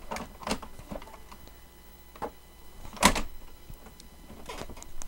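Plastic clicks and knocks from a Lexmark X5495 all-in-one printer being handled, its lids and covers moved, with one sharp knock about three seconds in.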